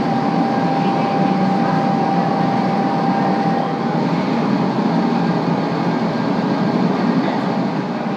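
Gas-fired glassblowing furnace running: a steady rushing noise from the burner and blower, with a thin steady tone running through it.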